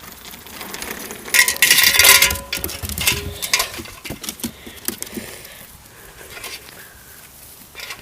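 A dog scuffling with a rubber balloon: a loud rubbing, squeaky scuffle lasting about a second, about a second and a half in, then scattered light taps and clicks.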